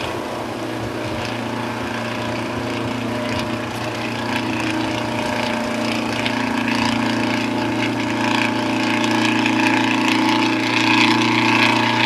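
Small ferry boat's engine running with a steady low drone as it crosses rough water, over the splash and wash of choppy waves, which grow louder towards the end.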